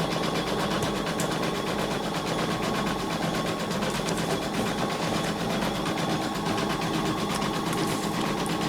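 Embroidery machine stitching steadily, its needle running in a fast, even rhythm.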